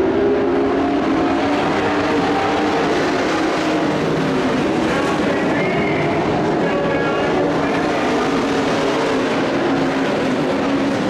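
Several dirt-track race trucks' engines running together at racing speed: a steady, loud drone whose pitches waver up and down as the trucks accelerate and lift through the turns.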